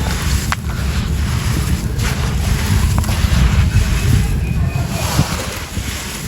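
Dry, gritty sand-cement crumbling in water: a steady, rushing, watery fizz with a few sharp crackles.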